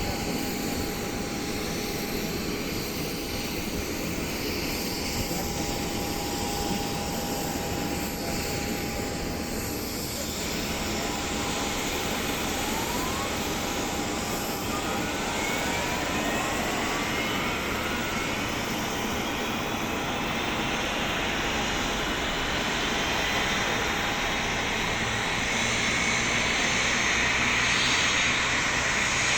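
Boeing 737-800's jet engines running over a steady roar, with whines that rise in pitch from about halfway through and climb higher toward the end as the turbines spool up.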